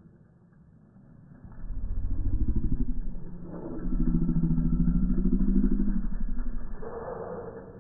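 A motor vehicle's engine running slowly close by for about five seconds: a low, rapidly pulsing engine note that swells twice, then fades away near the end.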